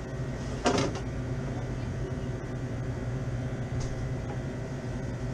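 Low, steady machine hum, with a single short clatter or knock just under a second in.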